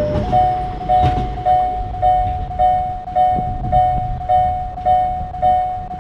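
Railroad level-crossing warning bell ringing in even strokes a little under twice a second, its tone stepping slightly higher about a quarter second in. A passing train rumbles underneath early on and fades away by the middle.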